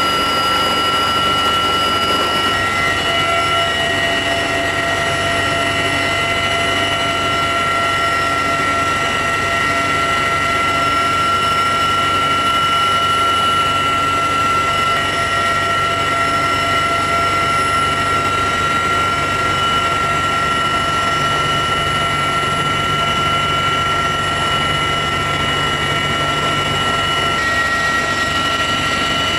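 Cabin noise inside a CH-53E Super Stallion heavy-lift helicopter in flight: a loud, steady din of rotor and turbine engines with several high, steady whines on top.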